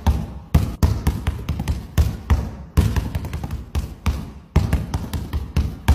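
Basketball dribbled on a hardwood gym floor in quick, uneven bounces, about three a second.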